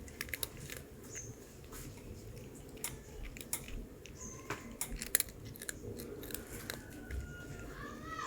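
A cat crunching and chewing a hard, crunchy murukku snack: irregular sharp crunches and bites. A few short high chirps sound faintly behind it.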